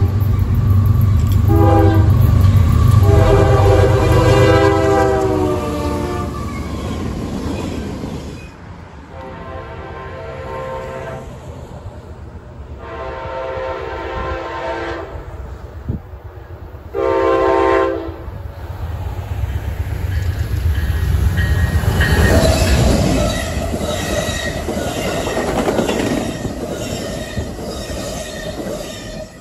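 A train horn sounds a series of blasts with several tones at once: long ones over the first several seconds, then shorter ones, the last a short loud blast. Then an Amtrak passenger train passes close, its wheels rumbling and clicking over the rail joints, fading near the end.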